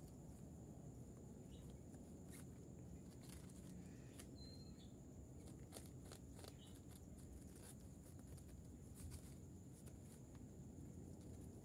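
Near silence with scattered faint, irregular clicks and rustles: rabbits nibbling cut banana stalks and leaves and shifting on dry leaves.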